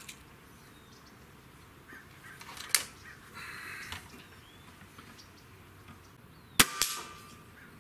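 Gamo Whisper Fusion Mach 1 .22 break-barrel gas-piston air rifle: the barrel snaps shut with a click about three seconds in. Near the end comes a single shot, the loudest sound, followed a moment later by a second smaller crack as the pellet strikes the target.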